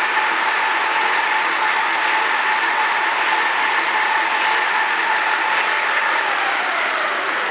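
Circular loom for woven bags running at speed: a steady mechanical clatter with a constant whine.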